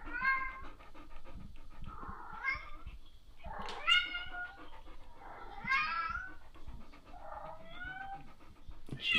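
Recorded cats meowing, played through a TV's speakers: about five drawn-out, wavering meows, one every two seconds or so, that sound like cats in distress.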